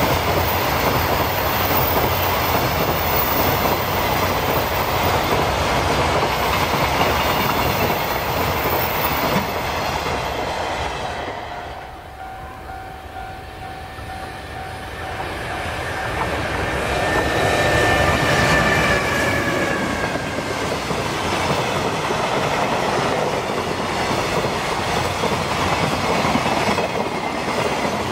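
Container freight wagons rumbling and clacking past on the rails. About eleven seconds in the noise drops away, then builds again with a steady whine as a JR Freight EH500 electric locomotive approaches. Its container wagons then rumble and clack past.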